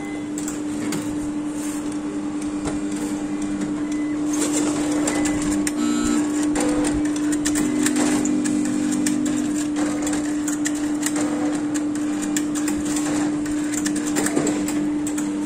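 Roche cobas e 411 immunoassay analyser running samples: a steady hum under repeated clicks and short motor whirs as its pipetting arm and sample disk move.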